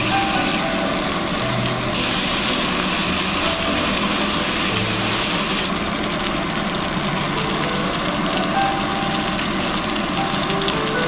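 Steak sizzling in butter and oil in a cast-iron skillet: a steady frying hiss that thins out in its upper part about six seconds in.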